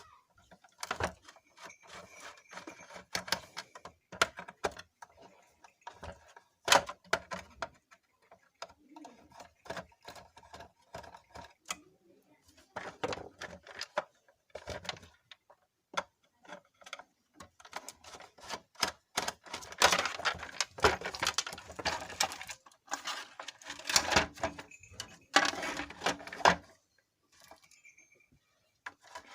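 Hand tools and screws working on a mixer grinder's plastic body: irregular clicks, ticks and small rattles as screws are undone and parts are handled. Louder, denser clattering comes in the second half.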